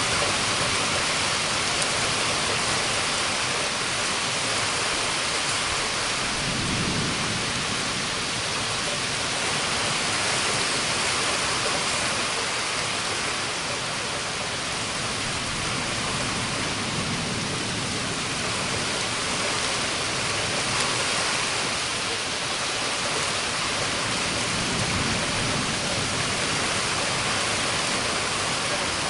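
Heavy rain falls in a steady hiss during a summer thunderstorm. Low thunder rumbles softly about three times, roughly a quarter, a half and most of the way through.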